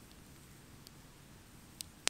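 Wood campfire crackling faintly, with a few scattered small ticks and one sharp pop near the end.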